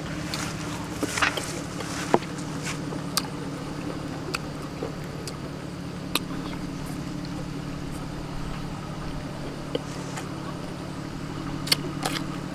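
Steady drone of a farm tractor's engine (a rot tai) running in the field, with a few sharp clicks from eating close to the microphone.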